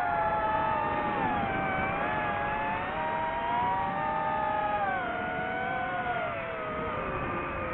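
DJI FPV drone's motors and propellers whining, several close pitches gliding up and down together as the throttle changes; the pitch sinks lower near the end.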